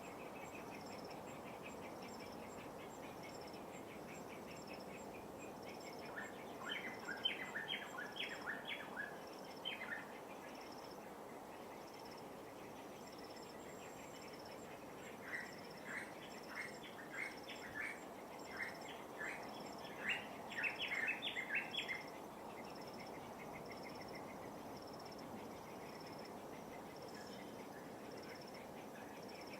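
Birds calling in two bouts of rapid, repeated short notes, about six seconds in and again in the middle, over a steady, regular high pulsing of insects and the soft, even wash of light waves.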